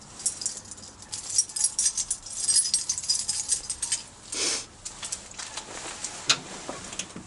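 Small metal tools or parts being handled, giving light clinking and rattling, with a brief rustle about four and a half seconds in and a sharp click a little after six seconds.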